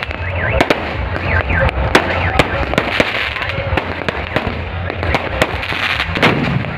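Fireworks and firecrackers going off close by in quick succession: a rapid, irregular string of sharp bangs and crackles.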